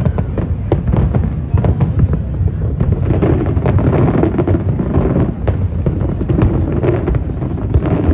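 Aerial fireworks going off in quick succession: a rapid string of sharp bangs over a continuous low rumble from the barrage.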